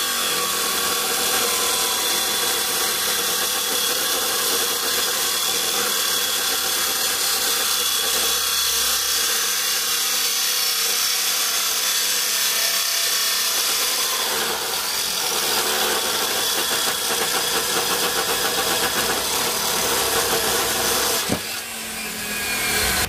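Angle grinder cutting a piece of scrap steel, running steadily with a high whine and hiss for about twenty seconds. It is then switched off about two seconds before the end and winds down with a falling whine.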